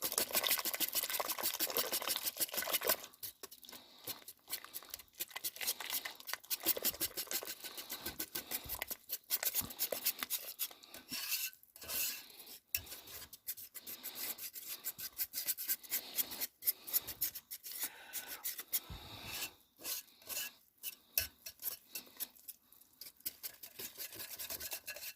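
Cake batter being stirred by hand in a Pampered Chef Rock Crok ceramic Dutch oven: a utensil scrapes against the inside of the pot in quick repeated strokes, with a few short pauses.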